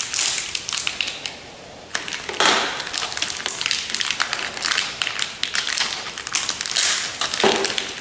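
Crinkling and crackling of a foil vacuum-pack bag being torn open and peeled by hand, irregular and close, with a brief lull about two seconds in.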